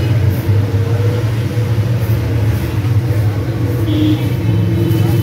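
Steady low drone of a running engine.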